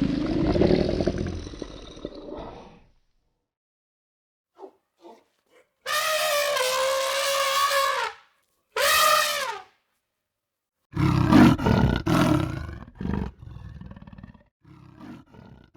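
A series of wild animal calls: a low roar fading out in the first few seconds, two pitched calls a couple of seconds apart, the first held steady and the second falling at the end, then more low, rough roaring that tails off.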